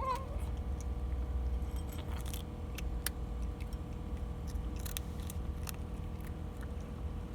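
A steady low rumble with scattered light clicks and small metallic jingles. The tail of a cat's meow is heard right at the start.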